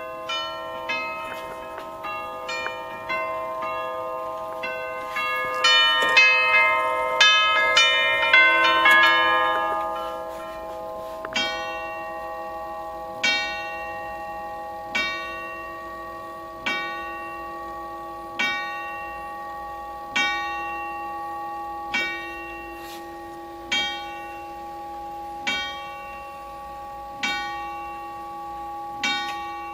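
Kuempel Mark III eight-tube chime clock playing its hour chime, a quick melody of struck tubes ringing over one another for about ten seconds. It then strikes the hour on a single tube, one stroke about every two seconds, eleven strokes in all. The clock is in fact striking 11 at 1 o'clock: its hour strike is running two hours behind the time it keeps.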